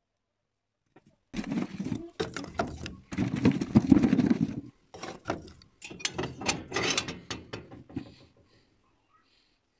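Clattering and scraping at a cast-iron wood-burning stove: its iron lid is moved over the firebox and wood shifts inside. It comes in several noisy bursts full of sharp clicks, starting about a second and a half in and dying away about a second before the end.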